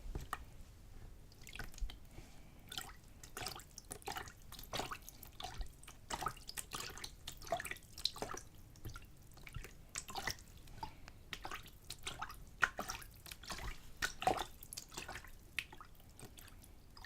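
A small amount of water splashing and sloshing back and forth in a lidded container, in many short, irregular splashes and drips, several a second.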